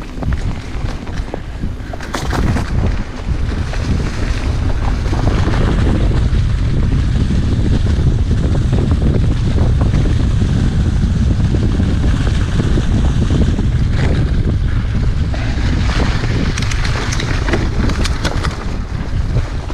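Wind buffeting the microphone of a camera on a moving mountain bike: a steady low rumble with scattered clicks and rattles, louder through the middle of the stretch.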